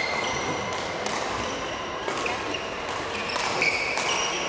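Badminton rally: a shuttlecock struck by rackets about once a second, with shoes squeaking on the court floor between shots.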